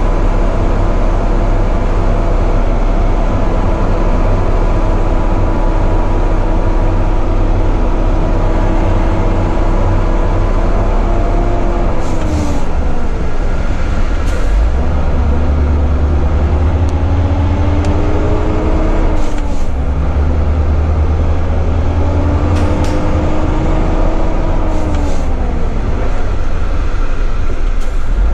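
Volvo FH12 480's inline-six diesel engine heard from inside the cab while the truck drives under load. The engine note drops sharply about three times and then climbs slowly, as at gear changes, with short hisses around the shifts.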